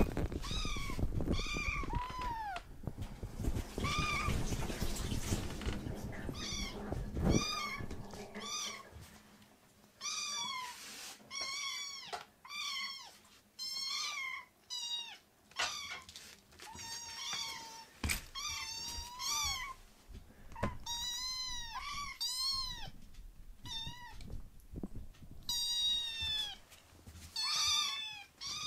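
Two young kittens meowing over and over in a chorus of short, high mews, one call following another, begging for food. A low knocking noise runs under the calls for the first seven seconds or so.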